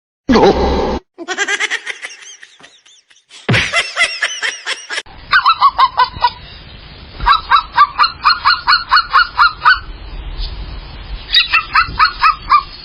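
A bird honking in quick runs of sharp calls, about five a second, broken up by cuts between short clips.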